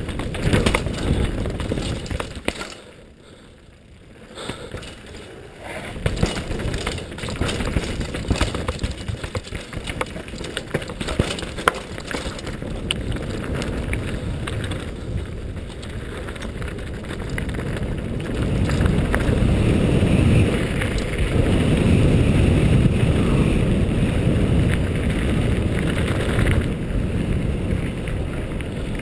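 Full-suspension downhill mountain bike (a 2010 Cove Shocker) ridden fast over dirt and rocks: tyres crunching on stones, with chain and frame rattling and knocking, heard through a GoPro housing with wind noise. About two and a half seconds in it goes much quieter for a few seconds before the clatter resumes, and in the last third a louder, steady rush of wind and gravel takes over.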